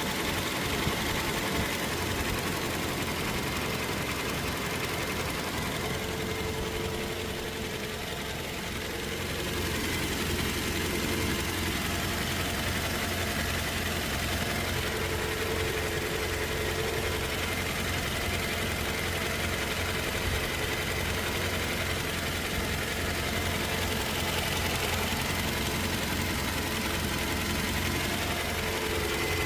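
Toyota Hilux diesel engine idling steadily, with a faint tone that comes and goes.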